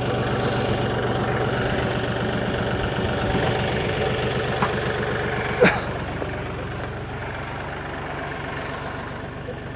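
Kioti DK6010 SE tractor's diesel engine idling steadily, with a single sharp knock about halfway through. The engine grows slightly quieter near the end.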